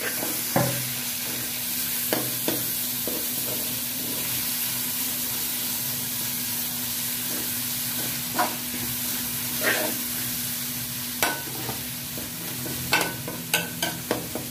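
Chopped tomatoes, green chillies and ginger sizzling in hot oil with fried onion and garlic while being stirred, with a metal spoon scraping and clinking against the metal pot about a dozen times, most often near the end.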